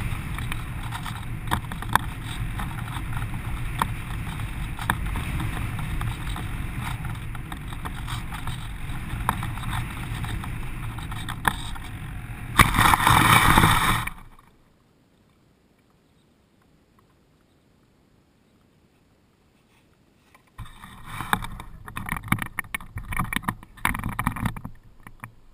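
Steady airflow rushing over a GoPro camera mounted on a gliding ParkZone Radian RC plane. About twelve seconds in, a louder rush for a second or so as the plane touches down and slides through grass, then near silence. Near the end come irregular knocks and rustles of the plane being handled.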